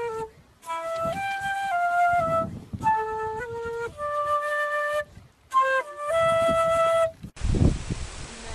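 Flute playing a slow melody in short phrases of held, stepping notes with brief pauses between them. About seven seconds in the sound breaks off abruptly with a low thump, and a held note follows.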